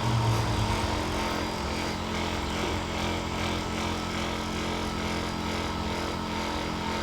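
Electric handheld massager's motor running steadily, an even hum that holds one pitch throughout.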